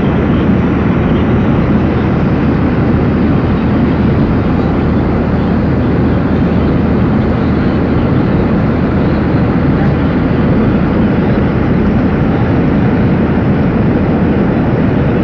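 Steady drone of a passenger aircraft heard from inside the cabin: engine and airflow noise, loud and unchanging.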